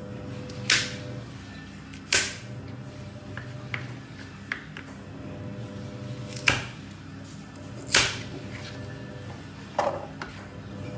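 A sharp kitchen knife chopping carrots on a cutting board: five loud chops at uneven gaps of one to four seconds, with a few lighter taps between.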